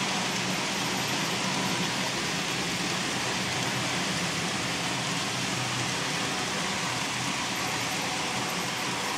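Several N-scale model trains running at once around the layout and helix: a steady whirr of small motors and wheels rolling on the rails.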